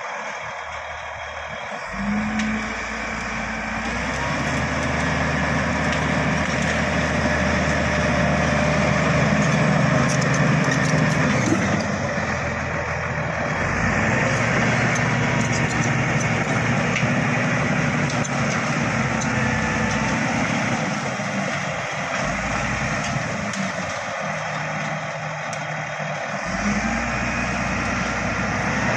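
Bulldozer's diesel engine running under work, its loudness rising and falling as the load changes, with a wide mechanical clatter over the engine note.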